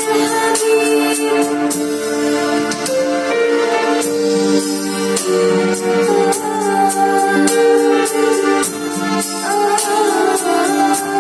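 A girl singing into a microphone over backing music with a steady beat, holding long notes with a slight waver in pitch.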